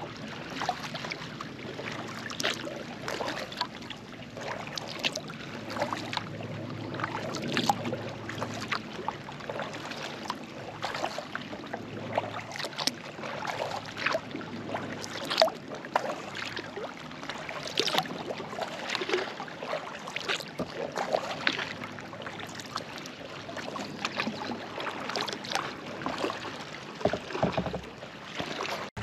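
Sea kayak paddle strokes: the blades dip and splash into the water about once a second, alternating sides, with water running and dripping off the paddle between strokes.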